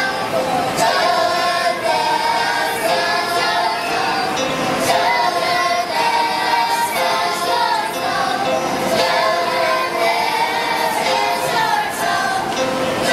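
Children's choir of fourth- and fifth-graders singing together, many young voices holding and moving between sung notes.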